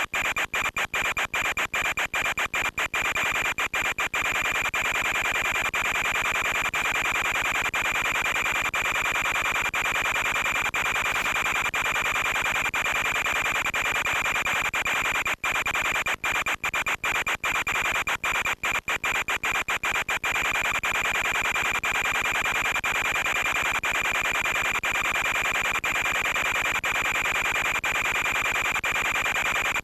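Steady harsh static hiss with a constant high whine, from the audio channel of an analog FPV video link. It is broken by many brief dropouts in the first few seconds and again between about fifteen and twenty seconds in, where the signal momentarily breaks up.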